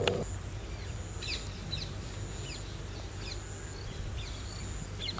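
Small birds chirping: short, high, falling chirps repeated every half second or so, over a steady low rumble.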